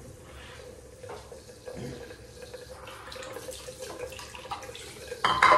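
Water from a bathroom tap running into a sink, with small clicks and splashes of hands and things being rinsed. A short, louder sudden sound comes near the end.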